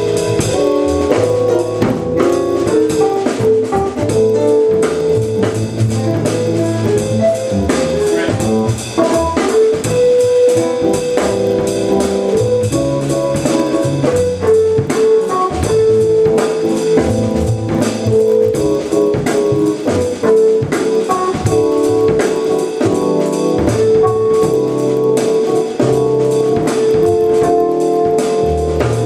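Live jazz-funk band playing: a drum kit keeps a busy groove under electric keyboards holding sustained melody notes, over a stepping low bass line.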